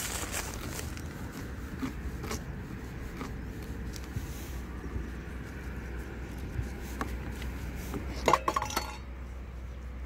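Small taps and clicks of a knife and fingers working a goby on paper towel over a metal camp table, with a brief ringing metallic clink about eight seconds in, over a steady low rumble.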